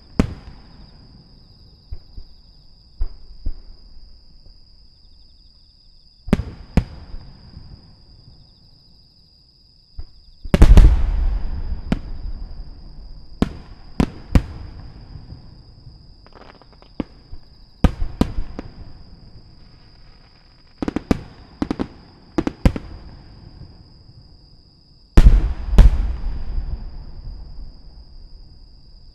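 Aerial firework shells bursting: sharp bangs, some single and some in quick clusters, each followed by a rumbling echo. The loudest volleys come about ten seconds in and again near the end.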